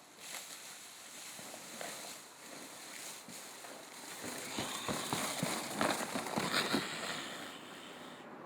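Irregular crackling and crinkling, building to a dense run of sharp crackles in the middle, then easing off near the end.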